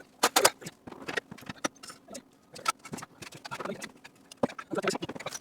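Irregular clicks and light knocks of car parts and tools being handled during suspension work, coming in quick uneven runs.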